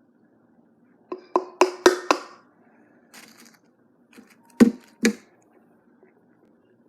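Hard taps and knocks on a mixing bowl: about five in quick succession, then two louder knocks about three seconds later.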